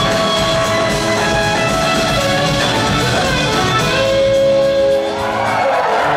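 Live rock band playing: two electric guitars, a Gibson SG and a Fender Stratocaster, over two drum kits and bass. About five seconds in, the drums and bass drop out and a held chord rings on.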